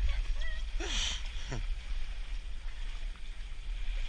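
Steady low rush of water and wind as a sailboat sails along at speed, with a brief falling vocal sound about a second in.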